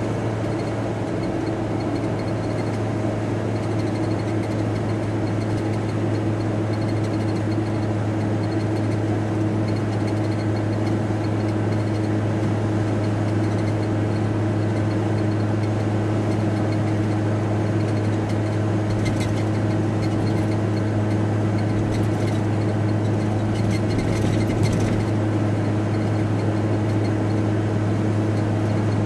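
VW T4 Transporter heard from inside the cab while driving along: a steady low drone with constant humming tones, and a couple of brief knocks about two-thirds of the way through.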